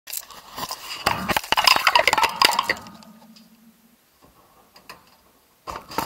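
Clattering and clinking of dishwasher racks and dishware for about three seconds, then a short low hum, a few scattered clicks, and another brief clatter near the end.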